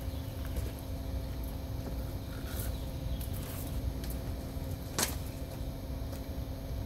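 Steady low rumble and hum of background noise, with a single sharp clack about five seconds in as the corrugated RV sewer hose and its fitting are handled.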